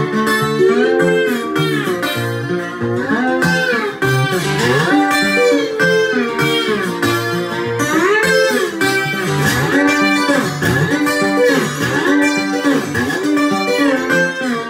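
Steel-string acoustic guitar played solo fingerstyle, an instrumental with many notes gliding up and down in pitch.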